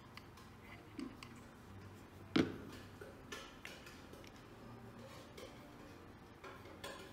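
Small metal parts clicking and tapping as the shaft, rotors and locating pins of a motorcycle oil pump are handled and fitted into its aluminium housing, with one louder knock about two and a half seconds in.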